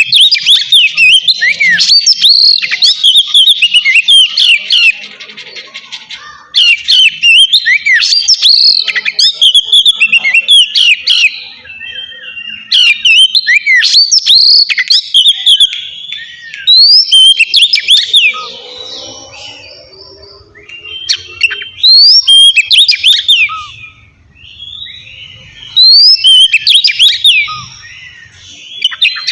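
Oriental magpie-robin (kacer) singing its loud, relaxed 'ngeplong' song. It gives bursts of clear, quickly gliding whistled phrases a few seconds long, separated by short pauses.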